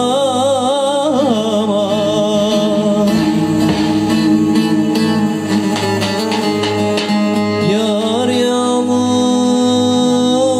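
A man singing a Turkish zeybek folk song, his voice wavering in pitch for the first second or so, accompanied by a plucked string instrument holding long notes over a steady low drone.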